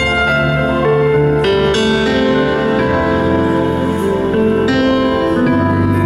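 Live band playing a slow, tender ballad, with keyboard chords held and changing every second or so.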